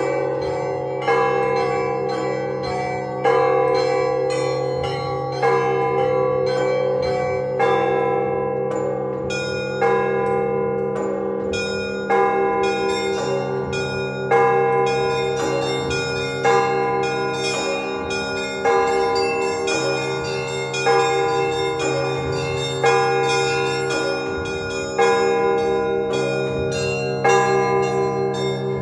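Russian Orthodox church bells ringing a peal that calls to the Sunday service. A deep bell is struck about every two seconds, under a quick, steady patter of small bells and a rhythm of middle bells.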